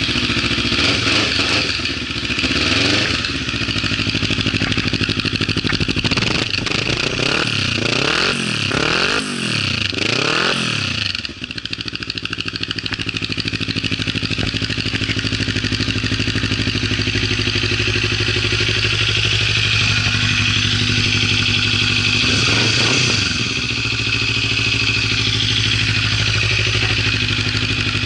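Kawasaki Ninja 400's parallel-twin engine idling just after starting. Several quick throttle blips rise and fall about a quarter of the way in, then it settles to a steady idle, with one more short blip later on.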